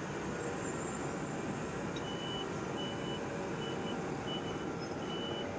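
Wirtgen W 210 Fi asphalt milling machine running steadily. About two seconds in, a reversing alarm starts, with short high beeps about every 0.8 seconds.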